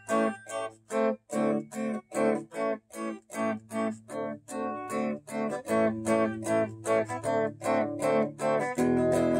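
Guitar played through the Peavey XR 680C mixer amp's channel six during its sound test: a chord strummed in short, choppy strokes about two to three a second, then a chord let ring near the end.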